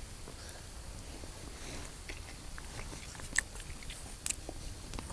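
A person chewing a mouthful of food, with scattered small clicks and two sharper clicks in the second half.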